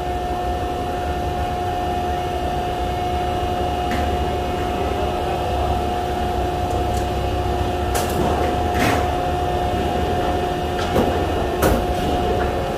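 Steady hum of running fabrication-shop machinery with a constant mid-pitched tone over a low rumble, broken by a few sharp metal clicks and clanks about two-thirds of the way in and again near the end.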